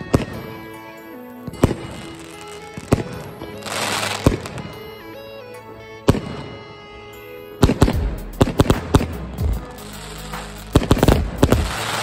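Aerial fireworks going off: single bangs every second or so, then a quick run of bangs about two-thirds of the way in and again near the end, with crackling hiss as the bursts spread. Background music plays throughout.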